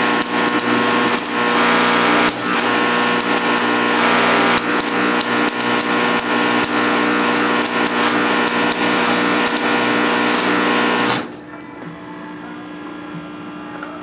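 Welding arc from a nickel rod on a cast-iron piston, building up a rust hole: a steady crackling sizzle with sharp pops over a steady hum. It cuts off suddenly about eleven seconds in.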